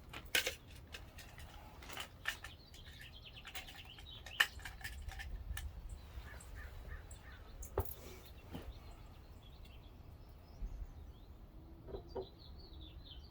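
Scattered sharp clicks and taps of a locksmith's tools working a front door lock, the strongest about half a second, four and a half and eight seconds in. Birds chirp faintly in the background.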